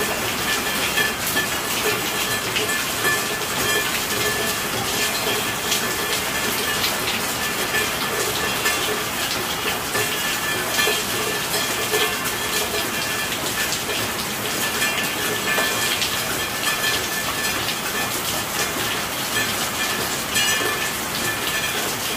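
Steady rainfall, a dense continuous patter of drops with no let-up.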